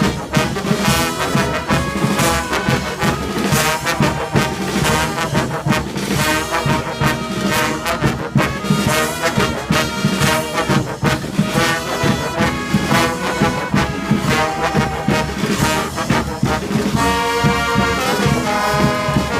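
Street brass band playing, with trombones and trumpets over a steady percussion beat. About seventeen seconds in, the beat drops away and the horns hold a long chord.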